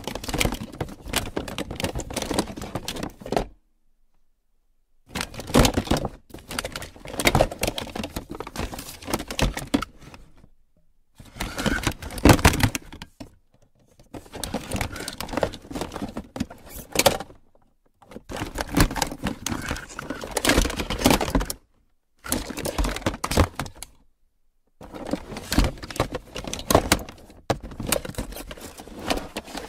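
A box full of plastic toys being handled and shaken, the toys clattering and rattling against each other. It comes in about seven bursts of a few seconds each, with brief silences between.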